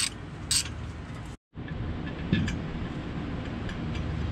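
Ratchet wrench clicking in two short strokes as it backs out the clutch pressure-plate bolts. The sound cuts off abruptly about a second and a half in, and after it there is a steady low hum with a few faint metallic clicks.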